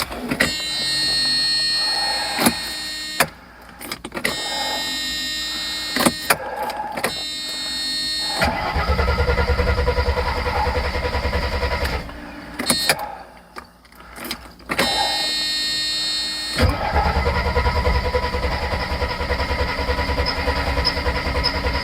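Mercedes 300SL being started on a freshly refitted fuel pressure regulator: the starter cranks in several short bursts, the engine catches about eight seconds in and runs for a few seconds before dying, then is cranked again and catches once more near the end.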